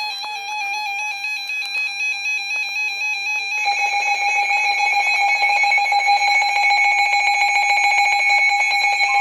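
Emergency Alert System alert tone: a loud, steady electronic tone that wavers slightly in pitch, growing louder and fuller about three and a half seconds in.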